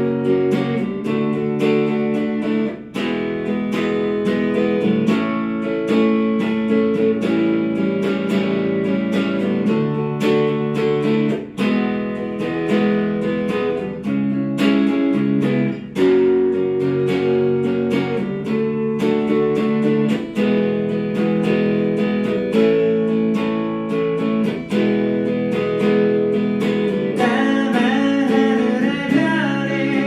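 Hollow-body electric guitar played solo, a repeating pattern of plucked chords, with a singing voice coming in near the end.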